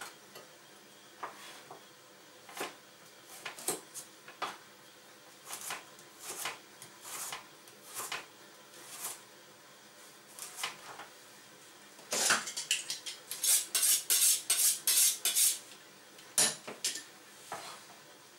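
Chef's knife slicing a carrot into thin sticks on a plastic cutting board: single cutting strokes knocking on the board every second or so, then a quicker, louder run of chops about twelve seconds in that lasts some four seconds.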